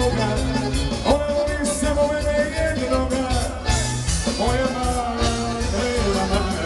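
Live band playing an upbeat dance number with a steady beat: drum kit, Korg electric keyboard and singers on microphones.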